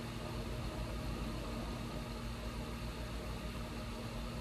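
A steady, unchanging machine hum with one constant low tone over a low rumble and a light hiss.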